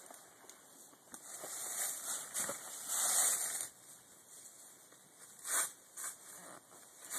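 Rustling and scuffing as a loaded hiking backpack is taken off and set down on dry leaf litter, with a few short sharp rustles near the end as it is handled on the ground.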